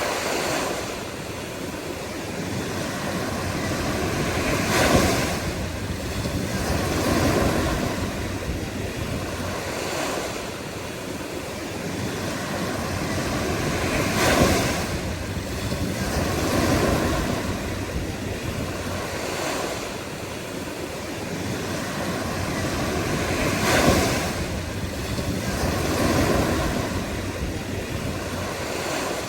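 Ocean surf: waves breaking and washing in continuously, swelling and ebbing every two to five seconds, with the biggest breakers about five, fourteen and twenty-four seconds in.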